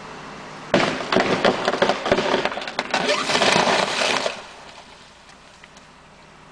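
Large horse chestnut stem falling as it is felled: a sudden loud burst of cracking and breaking wood and limbs crashing down, starting just under a second in and lasting about three and a half seconds before it dies away.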